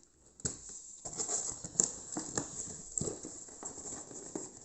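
Packaging being handled and opened by hand: a busy run of irregular taps, clicks, scrapes and rustling, the sharpest taps about two seconds in.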